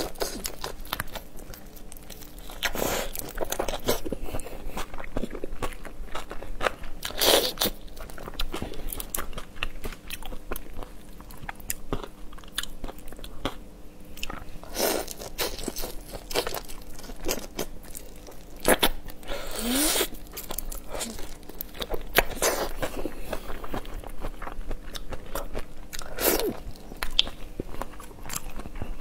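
Close-up mouth sounds of eating whole raw marinated shrimp: crunchy biting into the shells and wet chewing. Small crackles run throughout, with a louder bite every few seconds.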